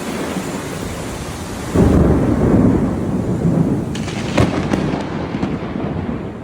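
Heavy rain falling, with a thunderclap: a sudden loud low rumble about two seconds in that rolls on for several seconds, with a few sharp cracks in the middle of it.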